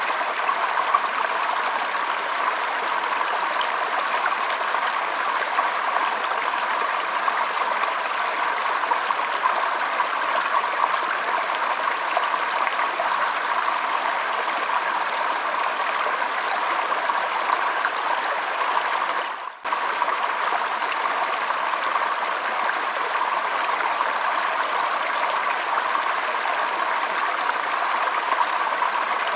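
Shallow stream trickling steadily over stones, an even rush of water. About two-thirds of the way through it briefly fades out and cuts straight back in.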